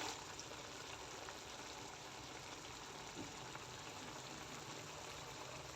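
Faint steady hiss of food cooking in a pan.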